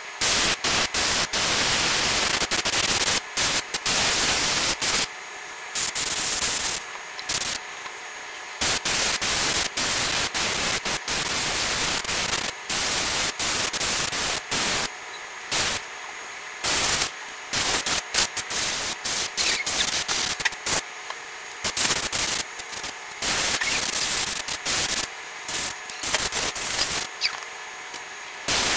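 Gravity-feed airbrush hissing in repeated bursts as the trigger is pressed and released, some bursts a fraction of a second and others several seconds long, with a fainter steady hiss in between.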